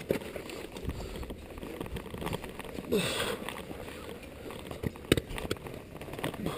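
A climber's handling noise on rock and snow: scattered clicks and knocks of metal climbing gear and gloved hands against granite, with a short scraping hiss about three seconds in.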